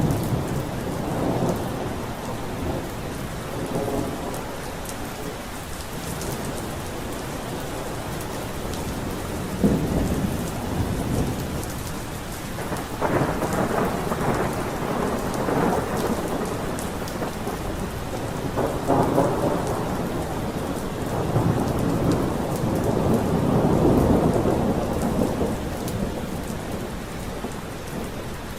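Steady rain with thunder rumbling again and again, including a sharp crack about ten seconds in and a long heavy roll near the end.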